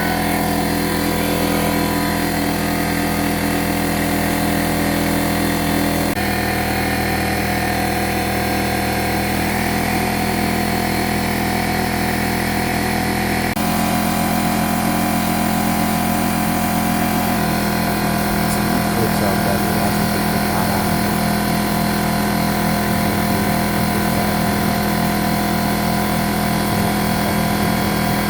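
Air compressor motor and pump running steadily, a constant mechanical drone whose tone shifts slightly a few times.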